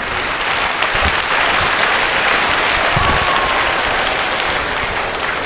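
Audience of schoolchildren and staff applauding in a large hall, a dense, steady clapping that swells in and holds.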